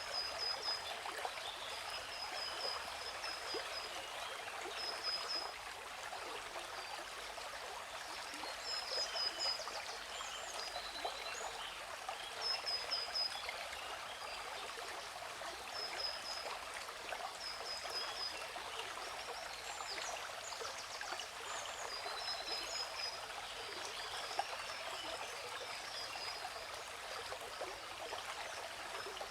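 Steady rush of a waterfall's falling water, with a bird chirping over it in short high runs of quick repeated notes every second or two.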